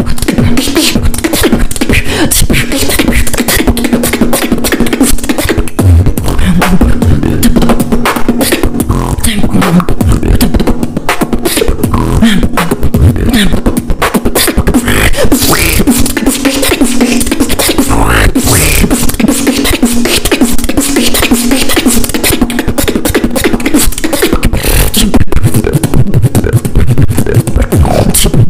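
Solo beatboxing: a continuous stream of rapid vocal drum sounds (kicks, snares, clicks), with stretches of a held low tone under them.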